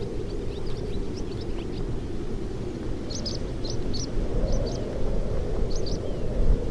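Evening wind whistling through the open doors and sagging window frames of an old wooden shack, a low, steady rushing. Swallows twitter in short bursts over it: a few in the first couple of seconds, then a livelier run from about three to six seconds in.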